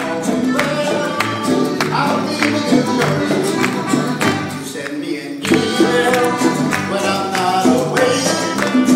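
A live Latin American folk band playing: strummed acoustic guitars with hand drums and singing. The music drops briefly about five seconds in, then comes back full.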